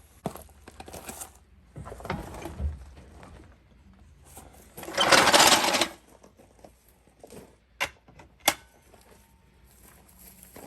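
Tire-change work noises: scattered knocks and clicks, and about halfway through a loud rattling burst of about a second from a power tool.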